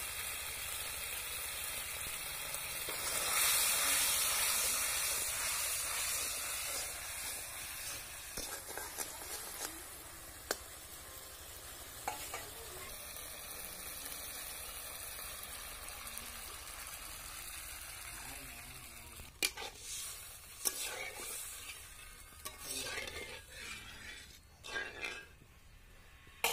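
Mustard and ginger spice paste with turmeric sizzling and bubbling in an aluminium kadhai over a fire; the sizzle swells about three seconds in. From about two-thirds of the way through, a flat spatula stirs and scrapes around the pan in short strokes.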